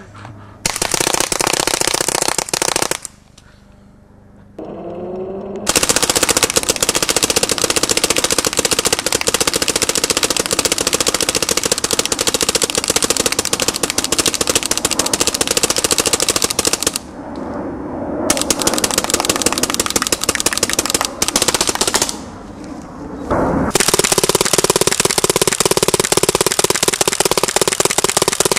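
Prototype Racegun Halfblock Autococker paintball marker firing at a very high rate, shot on shot like a machine gun. A short string comes about a second in, then long near-continuous strings broken by brief pauses. The shooter reckons it fires faster than its air system can keep up with.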